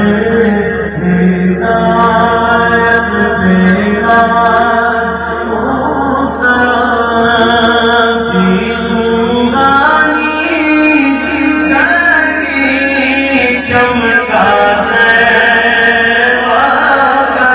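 A noha, the chanted Shia mourning lament, sung with long drawn-out melodic lines.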